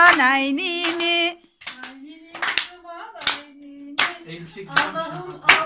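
Hands clapping a slow, fairly even beat, with a voice singing a tune over the claps during the first second or so.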